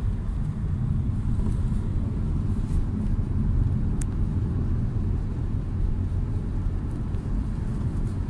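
Steady low rumble of a car driving at highway speed, its engine and tyre noise heard from inside the cabin.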